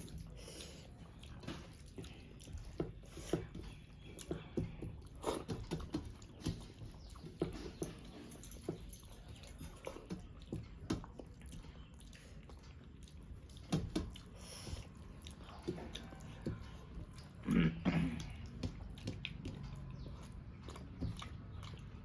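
Close-miked eating sounds: a person chewing rice and fish curry with lip smacks and small wet clicks, irregular throughout, with a few louder mouth noises about two-thirds of the way in.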